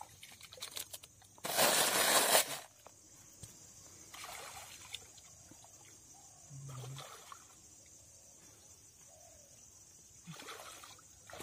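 Water splashing and sloshing: one loud splash lasting about a second, about a second and a half in, then several softer splashes and trickles.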